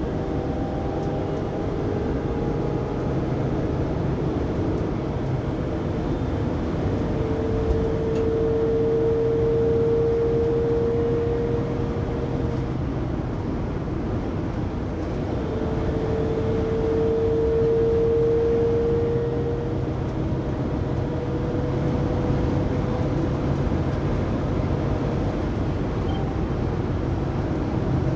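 Cabin noise of a 2019 Mercedes Sprinter 3500XD van at 80-90 km/h: steady road and drivetrain noise with a loud, high whine that swells twice for several seconds each, its pitch creeping slightly up. The whine is still there after the drive shaft and differential were replaced, so its cause is still unknown.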